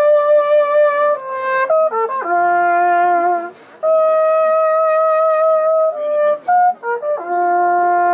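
Small valved brass horn played solo: a slow melody of long held notes with a slight waver, linked by short quick notes, with a brief breath about three and a half seconds in.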